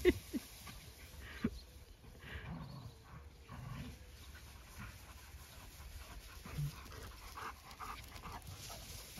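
Dogs panting faintly while they play, with a few soft scuffling sounds.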